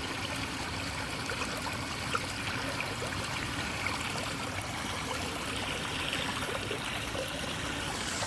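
Floodwater trickling and running steadily into a street storm drain whose cover is matted with leaves.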